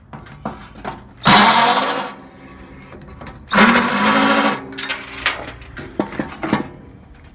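A handheld power tool, such as a drill or driver, run in two short bursts of about a second each, its motor pitch rising as it spins up, with small metallic clicks and knocks between the bursts while a pool heater is taken apart.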